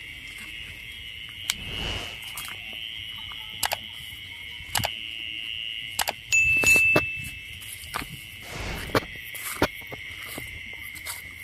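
A steady high-pitched night chorus of crickets and other insects, with crunching footsteps and rustling through dry leaves and grass, loudest about six seconds in.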